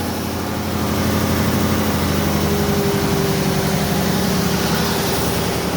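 Laguna 37-inch wide belt sander for metal running with a steady hum; the deepest part of the hum drops away about a second and a half in.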